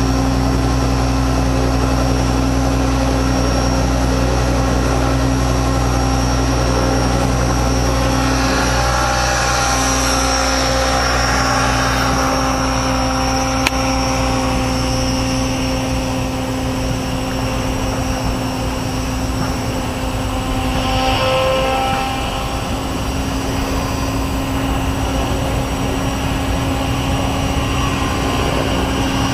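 Electric RC helicopter's motor and rotor running with a steady hum. About nine seconds in the low rumble breaks up as it lifts off and climbs away, while the hum carries on.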